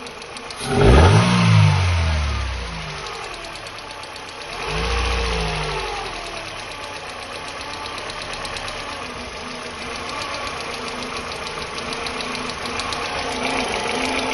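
Mercedes-Benz W124's M111 four-cylinder engine blipped sharply about a second in and again, more gently, around five seconds in, then idling with a fast, even ticking clatter. The clatter is from the valve train, and the alternator squeals: the owner's two complaints about this engine.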